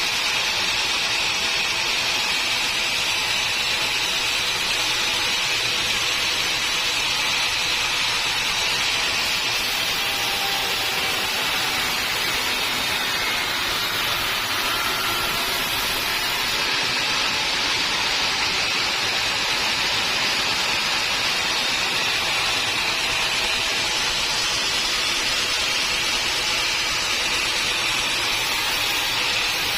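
Sawmill saw running: a steady, even hiss with no breaks.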